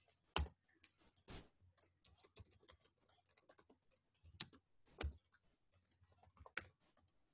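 Typing on a computer keyboard: a quick, irregular run of light key clicks with a few louder single strokes.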